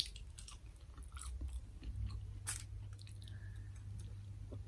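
A person chewing food quietly with the mouth close to the microphone, with small wet clicks and smacks.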